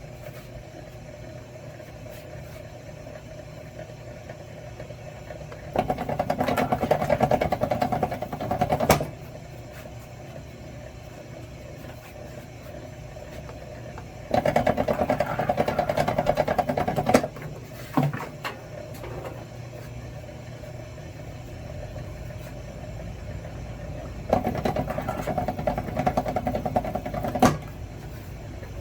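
Motorized wire stripping machine running steadily. It grows louder three times for about three seconds each as lengths of wire are fed through and stripped, and each pass ends in a sharp click as the wire comes out.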